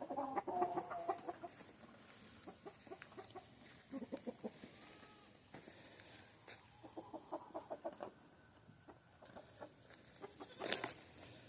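Chickens clucking: runs of short, soft, low clucks, with a brief louder noise near the end.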